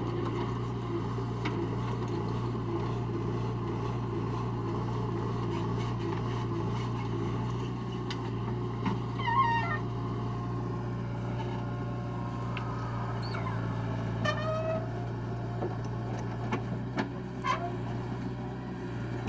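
Heavy diesel engine running steadily at a low hum, with scattered short clicks and a few brief high chirps.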